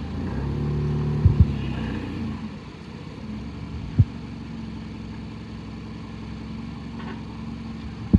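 Forklift engine revving as the forks are raised, then settling back to a steady idle. Sharp knocks come twice in quick succession early on and once more about four seconds in.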